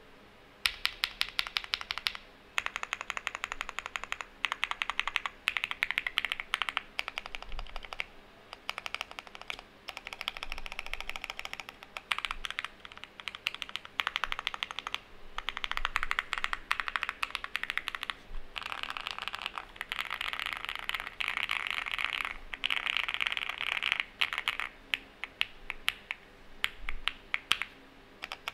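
Typing test on an Owlab Spring Alice-layout mechanical keyboard with stock TTC Wild switches and XMI-profile keycaps: fast, continuous keystroke clacking in runs of a few seconds, with brief pauses between them.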